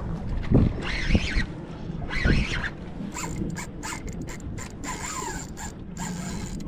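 Spinning reel whining in a few short rising-and-falling pulses while a hooked bluefish is fought on a tight line, strongest in the first couple of seconds and fainter after. Thuds of wind or handling on the microphone sit under it.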